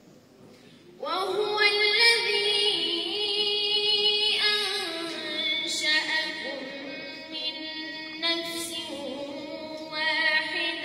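A young woman reciting the Quran in melodic tajweed through a microphone and loudspeakers. She comes in about a second in, holds long notes with ornamented turns of pitch, and breathes briefly between phrases.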